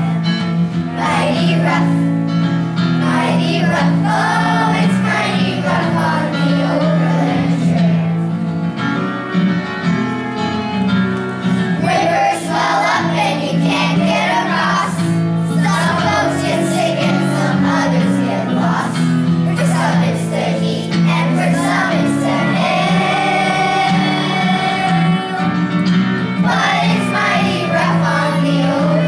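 Children singing a song together over a musical accompaniment.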